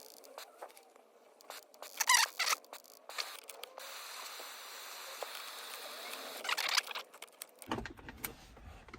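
Clicks, taps and short plastic rustles from handling the car radio's wiring and antenna plug, with two louder scrapes about two seconds in. A steady hiss runs for a few seconds in the middle, and a low hum comes in near the end.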